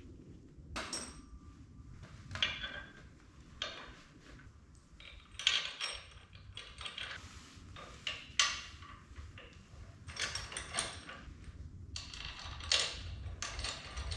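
Irregular clicks, clinks and light knocks of parts and tools being handled during hand assembly of an electric dirt bike, with a low steady hum underneath.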